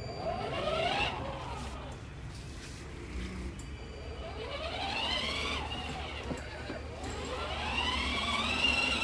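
Twin 25 W electric drive motors and gearboxes of a 12V Jaguar F-Type kids' ride-on car whining in three spells, each rising in pitch as the car speeds up and falling as it slows or stops.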